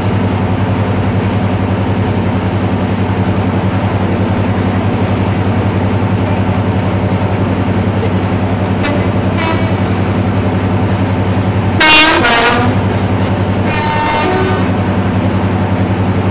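Class 55 Deltic diesel locomotive's twin Napier Deltic two-stroke engines idling with a steady low drone. Its horn sounds once, loud and brief, about twelve seconds in, and a fainter second toot follows about two seconds later.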